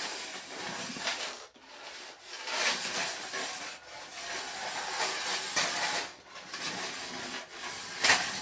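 Beetleweight fighting robot driving and turning under radio control on a wooden floor: a rasping, rubbing noise from its drive motors and its metal body scraping the floorboards. It comes in several spurts of a second or two with short breaks between, the loudest near the end.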